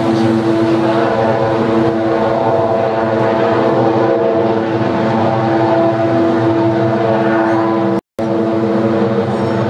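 Power plant giving off a loud, steady drone made of several held tones, the strongest one fairly low. The cause of the noise is unknown. The sound cuts out for a moment about eight seconds in.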